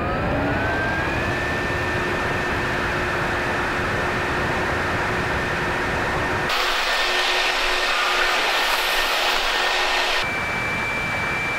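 The downforce fan of an RC fan car spinning up to a steady high whine with a strong rush of air, like a vacuum cleaner, then holding at speed. The sound shifts abruptly about six seconds in and again near the end, where the whine steps up to a higher pitch.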